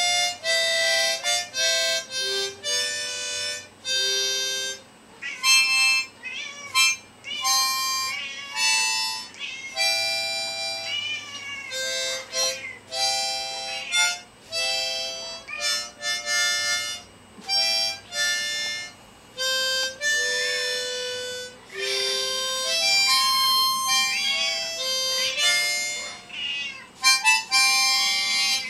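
A harmonica played haltingly in short held notes, with two house cats meowing along over and between the notes.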